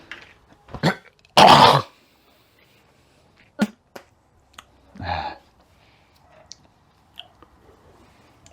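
A person coughing: a loud cough about a second and a half in, a shorter one just before it and another about five seconds in, with a few light clicks between.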